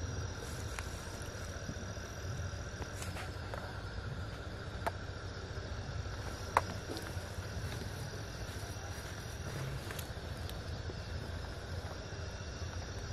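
Night insects, crickets among them, chirring steadily in high thin tones over a low rumble. Two sharp clicks cut through, the louder one about six and a half seconds in.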